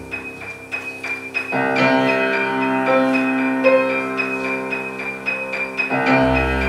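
Live instrumental music led by a grand piano, with held chords and sustained notes. The texture grows fuller about a second and a half in, and a deep bass note comes back near the end.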